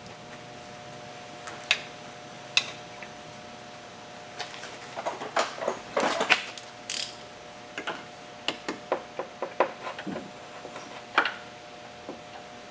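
Hand tools working on a car's engine bay: irregular metallic clicks and clinks, busiest in the middle, over a faint steady hum.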